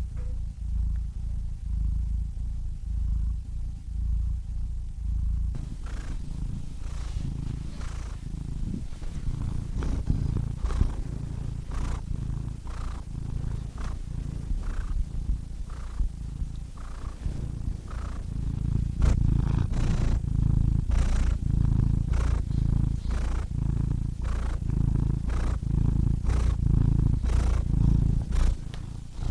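Domestic cat purring: a steady low rumble that swells and eases about once a second with each breath in and out. From about five seconds in, a breathy rasp rides on each breath.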